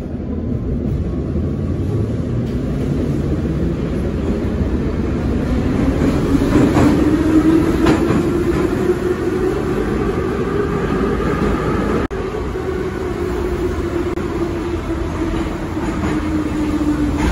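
Interior of an EMA-502 metro train under way. The traction motors whine, rising slowly in pitch as the train gathers speed, over a steady running rumble of the wheels on the rails. After a brief sudden dropout about two-thirds of the way through, the whine falls slowly as the train brakes into the next station.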